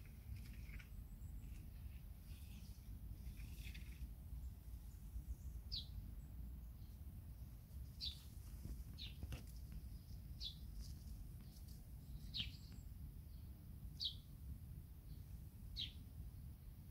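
A bird calling repeatedly: short, high notes that drop in pitch, about one every two seconds, starting about six seconds in, over a faint low rumble.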